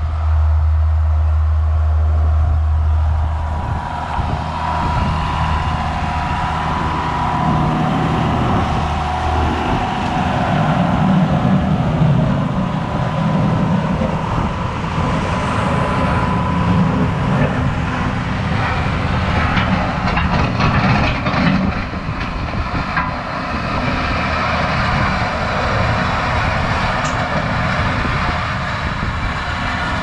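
John Deere 7610 tractor's diesel engine running while working, its note shifting several times as the load changes, with a thin steady whine at times.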